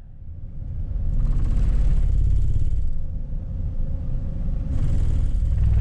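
A vehicle driving along a highway, heard from inside: a steady low road rumble that builds over the first second, with two swells of rushing tyre-and-wind noise, about a second in and again near the end, like traffic passing.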